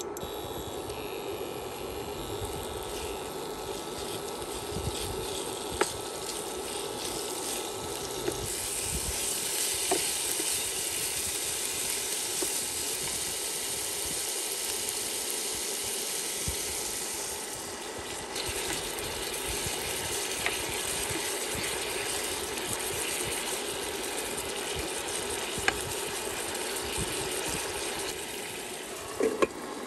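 Chicken pieces sizzling as they fry in oil in a nonstick pan, steady throughout, with a few sharp clicks of the spoon against the pan.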